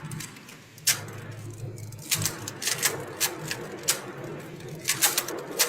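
Quick, irregular clicks and clacks over a low hum, heard through an online call's audio.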